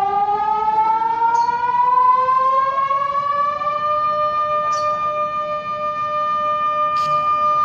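Emergency public warning siren sounding in a system test: one pitched wail that rises steadily in pitch for about four seconds, then holds a level tone.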